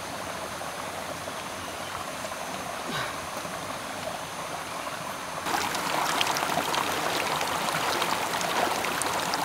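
Shallow rocky forest stream running, a steady rush of water. About five and a half seconds in it gets suddenly louder and brighter, with splashing and sloshing from feet wading through the water.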